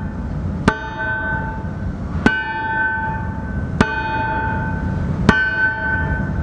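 Hammer striking a steel anvil about every second and a half, each blow ringing on like a bell until the next, over a steady low rumble.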